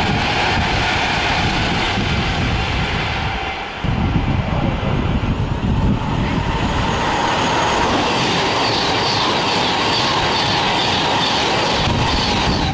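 Class 390 Pendolino electric trains passing at speed: one running by on a far track, then, after a cut about four seconds in, another approaching and passing close by.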